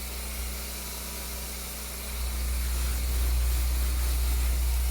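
Carpet-cleaning machine running steadily, a low hum under an even hiss, getting louder about two seconds in.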